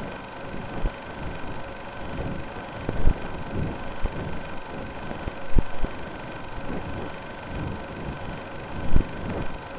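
Old film-reel noise: a steady hiss and crackle broken by irregular clicks and pops.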